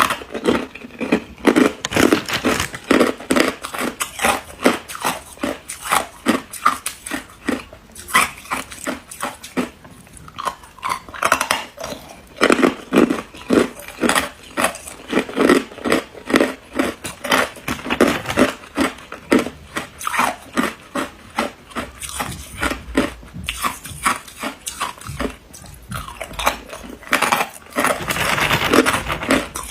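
Ice being bitten and chewed close to the microphone: a fast run of crisp crunches and cracks, several a second, with brief pauses between bites.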